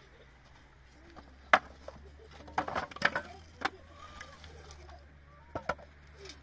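Irregular sharp knocks: single ones about one and a half seconds in and near the end, and a quick cluster a little before the middle, with a few faint short chirps over a low steady hum.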